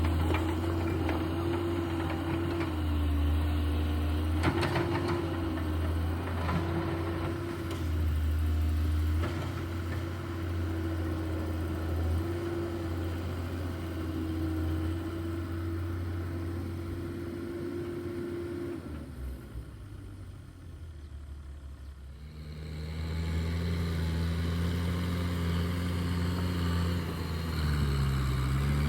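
Diesel engine of earthmoving machinery working, with a steady note that shifts slightly with load. It fades about nineteen seconds in, and a lower engine note comes up a few seconds later.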